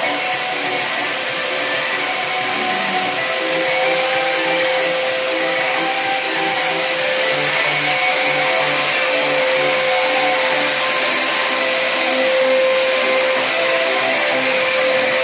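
Steady motor noise with a constant whine, like an electric machine running continuously, under music with a melody.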